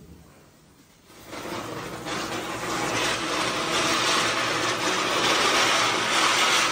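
Ground spinner firework (chakri) catching about a second in and then hissing steadily as it spins, the hiss growing louder over the next couple of seconds.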